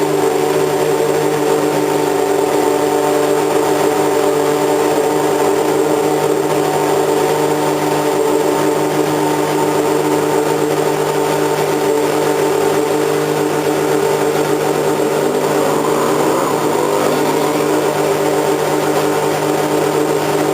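Racing car engine running at a steady, unchanging speed. About fifteen seconds in, a second engine's pitch briefly glides across it.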